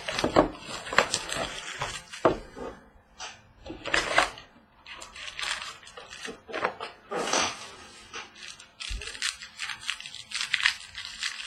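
Plastic wrapping and card packaging being torn open and crinkled in irregular bursts as sealed trading-card boxes are opened.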